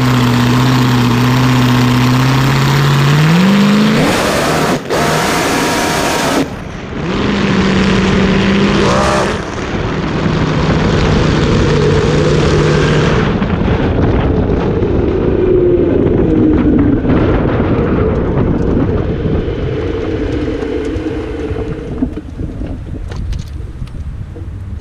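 Blown-alcohol twin-engine dragster (small-block and big-block Chevy V8s) holding steady revs on the line, rising, then launching into a sudden very loud full-throttle run, with a brief lift and a fresh burst of throttle a few seconds in before the sound fades near the end. The owner puts the sky-high revs on this pass down to the front small block coming uncoupled from the big block and free-revving past 10,000 RPM while the big block drove the car.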